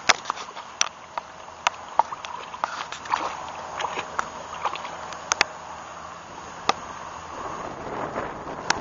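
A wolf at the lake edge lapping and wading in the water, with irregular splashes and sloshing that get busier near the end.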